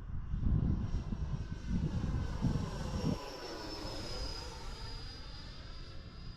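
FMS Futura 64 mm electric ducted-fan model jet flying past, its fan whine steady and high with a sweep in the sound as it passes. Wind buffets the microphone for the first three seconds.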